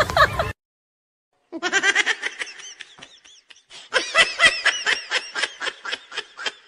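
A high-pitched laughing sound effect: giggling in quick repeated bursts that starts about a second and a half in, after a brief silence, and picks up again about four seconds in.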